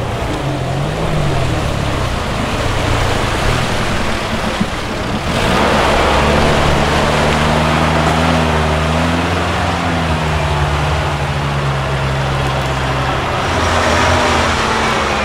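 Off-road 4x4's engine revving up and down while driving over rough, muddy ground. About five seconds in, a louder rush of noise sets in, and the engine holds steady high revs under load beneath it.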